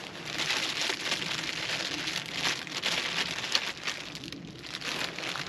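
Synthetic tarp fabric of a hammock tent tarp rustling and crinkling in irregular bursts as it is handled and unpacked.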